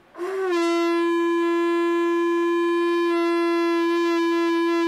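Conch shell (shankha) blown in one long, steady note that opens with a short upward slide; a heavy, full sound.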